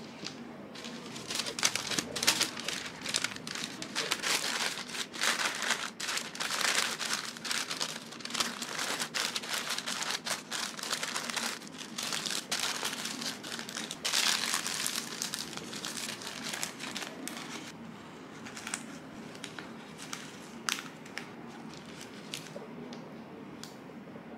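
Thin white wrapping paper crinkling and rustling as it is folded by hand around a mooncake. The crinkling is dense for most of the time and thins to occasional rustles near the end.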